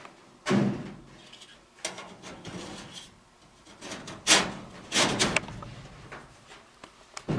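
Sheet-metal return air duct section being slid and pushed into place against the furnace: metal scraping and banging. There is a heavy thump about half a second in, and the loudest sharp metallic knocks come around four to five seconds in.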